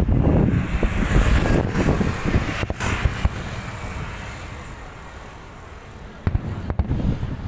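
Fireworks going off: a series of sharp bangs and crackles over wind buffeting the microphone. The bursts thin out in the middle, then sharp reports start again near the end.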